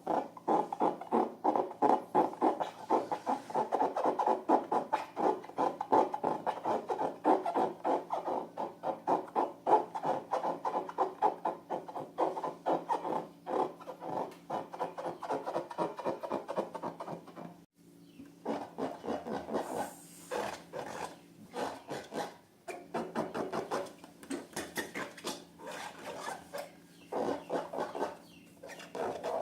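Rapid, repeated rubbing and squishing as slime and balloons are handled and worked, many strokes a second, with a brief pause a little past halfway.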